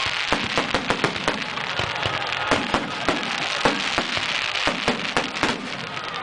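Aerial fireworks display: more than a dozen sharp bangs from bursting shells at irregular intervals, over a continuous hiss.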